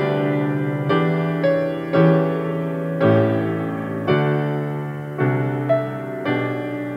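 Slow, gentle piano music: chords struck about once a second, each left to ring and fade.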